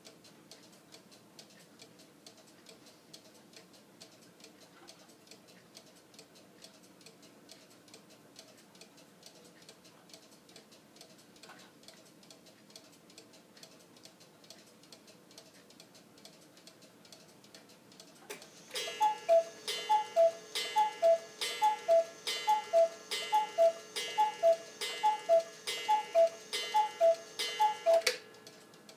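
Danbury Mint cuckoo clock ticking faintly and evenly, then striking the hour about two-thirds of the way through: its two-note falling cuckoo call repeats about a dozen times, each call with a sharp clack of the mechanism.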